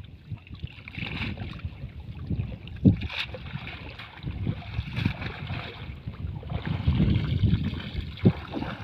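Shallow muddy water sloshing and splashing as a person wades through it, dragging a cast net, in irregular surges with a few sharper splashes. Wind buffets the microphone throughout.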